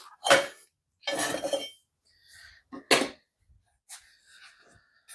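Steel pieces clinking and knocking as they are handled on a metal work surface: a sharp knock, a short rattling scrape about a second in, then another sharp knock near the middle.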